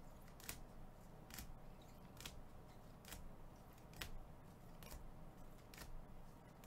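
Sharp plastic clicks about once a second, seven in all: trading cards in rigid clear plastic holders knocking against each other as they are swapped in turn.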